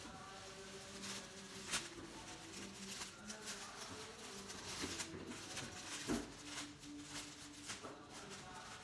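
Plastic packaging rustling and crackling as plastic-wrapped scarves are handled and stacked, with a few sharp crackles, the loudest about six seconds in.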